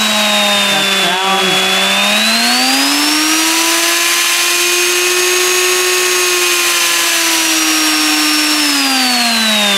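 Router motor spinning a straight bit up through a router table, running free without cutting. Its steady whine climbs in pitch about two seconds in, holds, then drops back down near the end.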